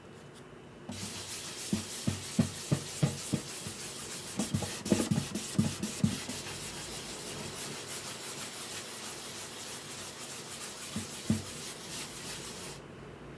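Hand sanding on a guitar's wood, with sandpaper rubbing steadily. Dull low knocks come in two runs in the first half and once or twice near the end.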